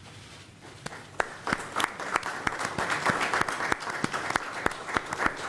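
Applause: a few scattered hand claps start about a second in and quickly build into steady clapping by many people.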